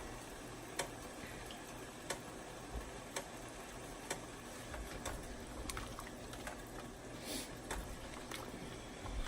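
Faint, irregular light clicks and taps over a low steady hiss, from the seafood-boil pot and its handling.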